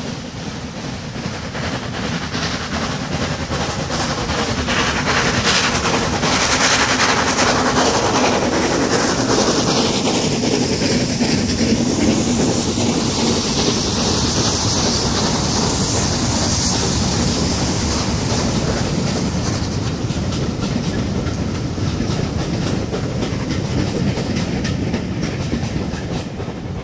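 S&DJR Fowler 7F 2-8-0 steam locomotive No 88 running past with a train of coaches. It grows louder over the first few seconds as it approaches, then the coach wheels clatter over the rail joints as the train goes by. The sound fades somewhat near the end.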